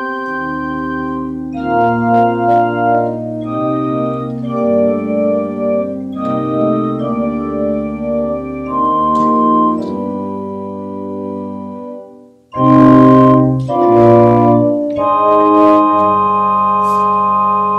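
Organ music: held chords moving slowly from one to the next, with a brief break about twelve seconds in followed by two loud, full chords.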